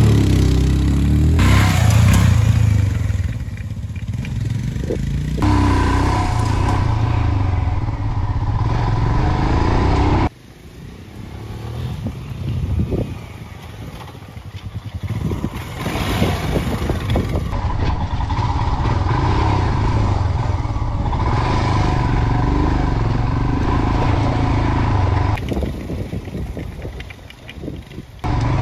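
Single-cylinder motorcycle engine running and revving on a dirt track, in a series of short stretches that change abruptly every few seconds.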